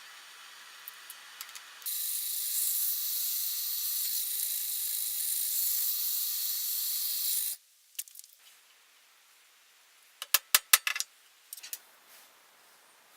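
Workshop tool sounds: a steady, high hissing tool noise runs for about six seconds and cuts off abruptly, then a quick run of about six sharp knocks.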